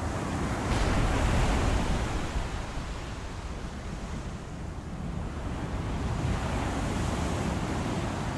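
Rough sea in a storm: waves surging and breaking with wind. It swells louder about a second in and again in the last couple of seconds.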